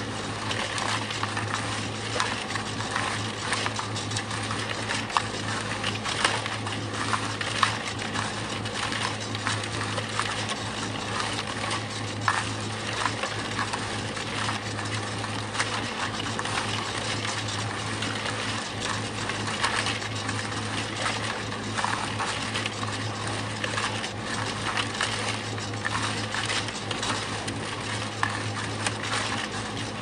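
Concrete mixer running steadily: a constant low motor hum under a continuous dense rattling clatter from the turning drum.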